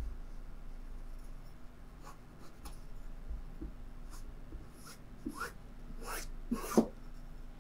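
Tailor's chalk scratching across fabric on a wooden table as points are marked: a few short strokes, the two loudest near the end, over a faint steady hum.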